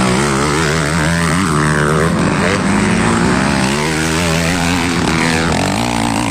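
Several motocross bikes racing past close by, their engines revving up and down as they ride the track.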